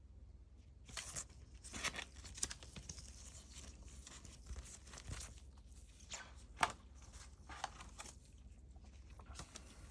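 Paper banknotes rustling and crinkling as they are handled, in irregular short rustles with the sharpest about two-thirds of the way in. A faint steady low hum runs underneath.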